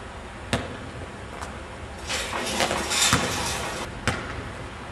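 Basketball knocking on a wet concrete court: a sharp knock about half a second in, then a busier stretch of scuffing with several knocks between about two and four seconds, the loudest about three seconds in.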